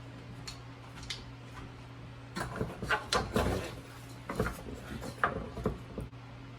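Light knocks and clatter of kitchen items being handled while seasoning a pot of chicken, a burst of them from about two seconds in to near the end, over a steady low hum.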